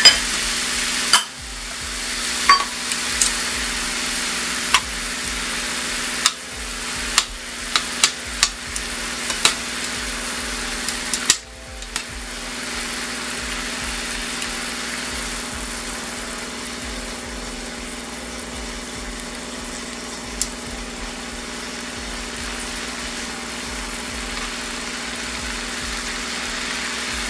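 Butter melting into a simmering garlic, lemon juice and wine sauce in a stainless saucepan, sizzling steadily. Metal tongs clink against the pan as it is stirred, often in the first half and once more later.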